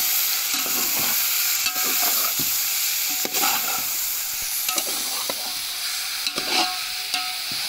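Boneless chicken pieces sizzling as they fry in oil in a steel pot, with a metal slotted spoon scraping and knocking against the pot repeatedly as they are stirred.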